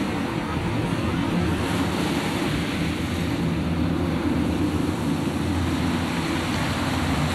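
Steady wash of choppy sea and wind buffeting the microphone, with a low motor drone underneath.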